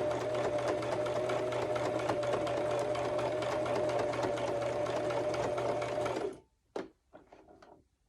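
Electric sewing machine running steadily, stitching a top stitch through fabric layers, with a quick even ticking of the needle. It stops abruptly about six seconds in, followed by a few light clicks.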